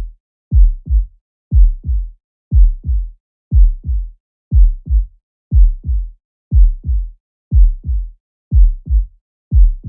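Normal heart sounds, S1 and S2: a steady lub-dub, a pair of short dull thumps about once a second, the first of each pair louder, with silence and no murmur between beats.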